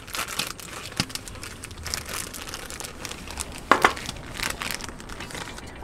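Plastic packaging being crinkled and rustled by hand, with many small handling clicks and one sharp knock a little under four seconds in.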